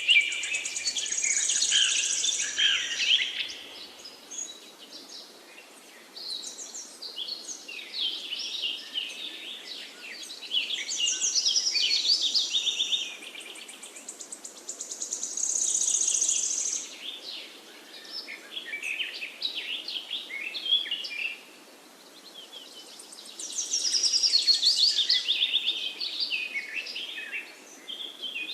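Songbirds singing: quick high chirps and trills in four long bursts of a few seconds each, over a steady faint background hiss.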